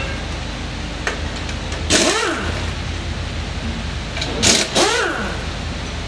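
Two short bursts from a hand-held pneumatic wrench, each about half a second long, its motor pitch rising and falling over a hiss of air, as bolts are worked loose on a Chrysler 5.7-litre engine being torn down. A steady low hum runs beneath.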